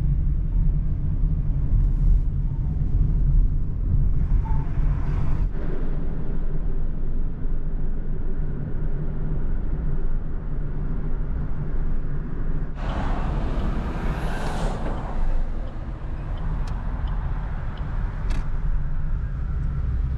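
Steady low rumble of engine and road noise inside a moving car's cabin. About two-thirds of the way through, a louder rushing noise swells up for two or three seconds and fades.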